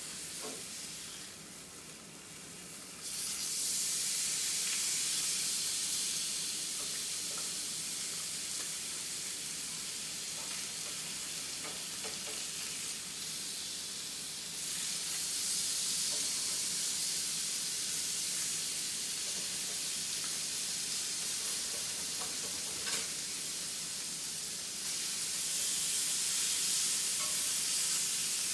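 Marinated salmon fillets sizzling as they cook: a steady frying hiss that grows louder about three seconds in, again about halfway, and once more near the end, with a few light clicks.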